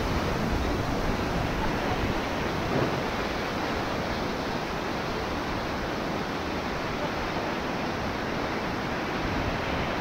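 Whitewater rapids rushing steadily around an inflatable raft: a continuous noise of churning river water.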